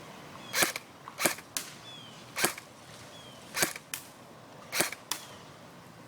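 JG M5-S6 airsoft electric gun firing single shots in semi-auto: five sharp cracks about a second apart. Several of them are followed by a fainter tick about a third of a second later.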